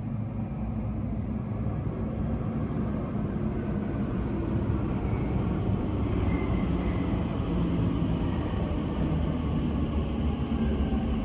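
Elizabeth line Class 345 electric train pulling into an underground platform behind glass screen doors: a steady low rumble that builds gently, with a high whine joining about five seconds in.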